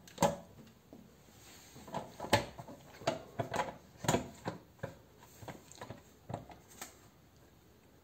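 Plastic lid of a Ninja Professional Blender 1000 pitcher being worked back into place on the jar: a string of light, irregular plastic clicks and knocks.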